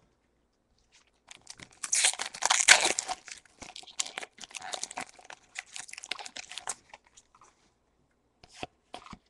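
Foil Pokémon booster pack wrapper being torn open and crinkled, loudest a couple of seconds in and fading out after about seven seconds. Near the end, a few short soft clicks as the cards are handled.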